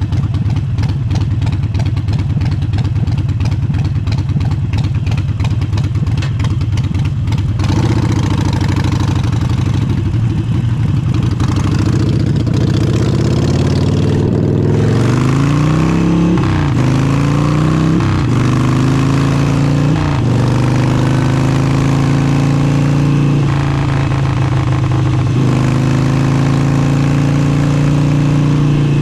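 Harley-Davidson Forty-Eight's V-twin engine through an aftermarket exhaust. It runs with a fast, even beat at first, then accelerates through the gears, its pitch climbing and dropping at each of several shifts about halfway through, and then holds a steady cruise.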